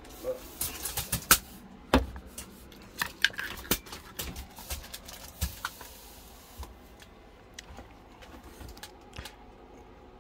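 Handling clatter at a workbench: a run of sharp clicks and knocks as the camera is picked up and moved and things are shifted on the bench, loudest about two seconds in and thinning out to a few faint ticks after about six seconds.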